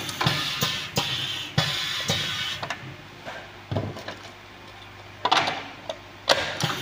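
Pad printing machine cycling over a steady hum: sharp mechanical knocks and short rushes of noise as the pad press and ink-cup shuttle stroke. Plastic knocks of parts being set into and lifted from the wooden jig are mixed in.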